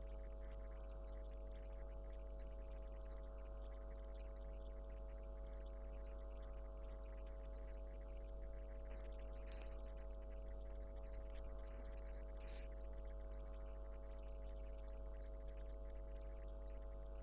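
Steady low electrical hum with a few faint high ticks about nine to thirteen seconds in.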